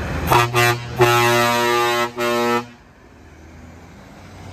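Scania truck's air horn: two short toots, then a long blast about a second in, broken briefly near two seconds, over the truck's engine running.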